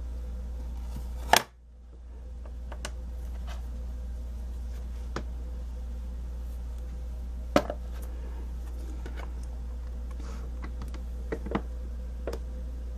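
Stamparatus stamping tool and its magnets being handled: a sharp clack about a second in, another around seven and a half seconds, and a few lighter taps near the end, over a steady low hum.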